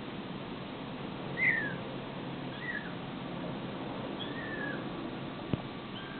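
Kitten mewing: four short, high, falling mews spread over several seconds, the first the loudest, with a single sharp click about five and a half seconds in, over a steady hiss.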